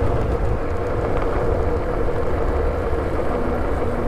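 Wind rushing over the microphone of a fat-tire electric scooter ridden at speed, with a heavy low rumble and a steady hum from the scooter's tires and motor on the road.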